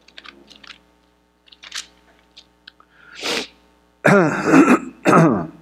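Thin Bible pages rustling and clicking softly as they are leafed through, with a short rushing swish about three seconds in. A man's voice speaks loudly for the last second and a half.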